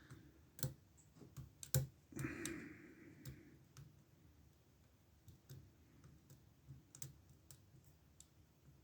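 Sparse, irregular metallic clicks and taps of a lock pick and tension wrench working the pins inside a Ruko lock cylinder, the loudest click a little under two seconds in. A soft hiss, such as a breath or rustle, follows for about a second.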